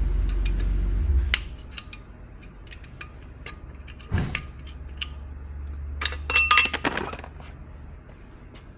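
Metal engine parts clinking and knocking together as they are handled, with a cluster of ringing clinks about six seconds in. A low hum stops after about a second.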